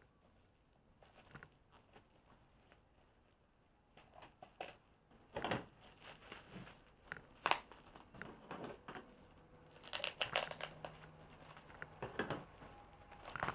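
Plastic bubble wrap being handled and pulled apart by hand, giving irregular crinkling and crackling. It is faint and sparse at first, then denser and louder from about four seconds in, with several sharper bursts.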